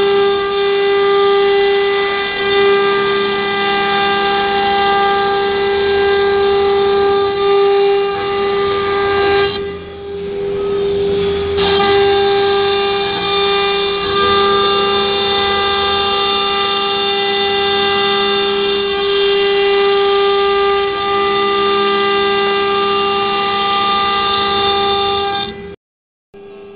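The 3.2 kW water-cooled spindle of a CNC router runs at speed with a steady high whine and several overtones while its bit routes grooves in 15 mm MDF. The upper part of the whine thins out for about two seconds near the middle, then comes back. The sound drops out abruptly for a moment just before the end.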